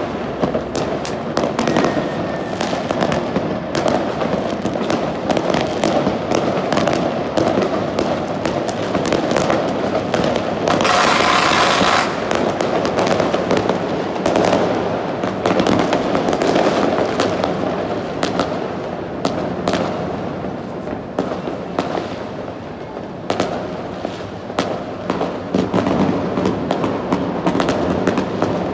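New Year fireworks and firecrackers going off continually, many overlapping bangs and crackles, with a loud hissing burst lasting about a second roughly eleven seconds in.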